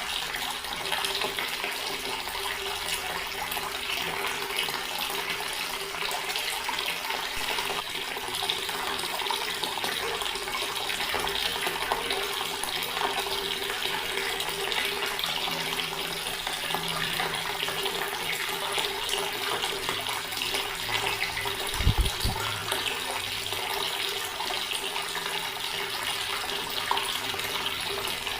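Water running steadily from a tap into a stone basin, a continuous splashing with a steady low tone beneath it. One brief low thump comes late on.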